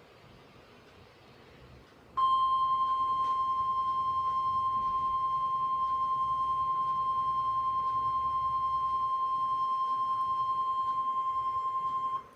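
NOAA Weather Radio's 1050 Hz warning alarm tone: one steady high beep, starting abruptly about two seconds in after faint radio hiss and held for about ten seconds before cutting off. It signals that an alert broadcast, here a severe thunderstorm watch, is about to follow.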